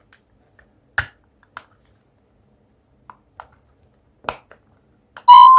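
A few sharp, separate clicks, the loudest about a second in and another near four seconds. Near the end, a Cacazi HYA10 wireless doorbell receiver starts playing an electronic chime melody loudly.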